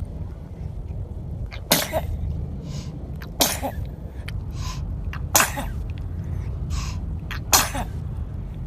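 A baby sneezing repeatedly: four sharp sneezes about two seconds apart, with fainter breathy sounds between them.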